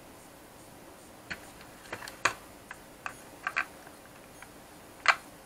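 Scattered sharp clicks and taps of small parts being handled inside an opened plastic remote-controller shell, as an antenna cable's threaded connector is fitted into the housing. Quiet for about the first second, then irregular clicks, the sharpest about two seconds in and near the end.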